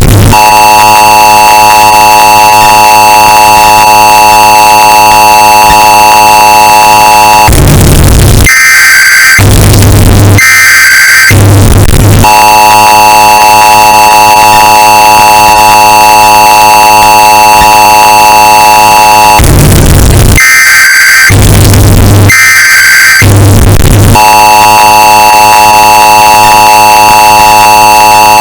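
Emergency Alert System signal, bass-boosted and clipped into heavy distortion. The long steady two-tone attention alarm is broken twice by a set of three short screeching bursts of digital header data, then the alarm tone starts again.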